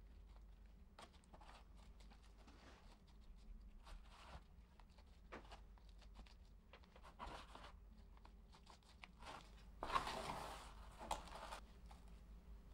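Faint scratching and rustling of potting mix with coco bark and perlite as it is pressed by hand into a small plastic plant pot. There is a louder, longer rustle near the end.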